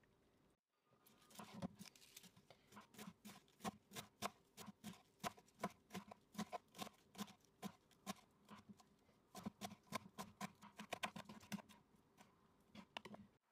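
Kitchen knife chopping green onion stalks on a wooden cutting board: a steady run of sharp knife strikes, about three to four a second, starting about a second in.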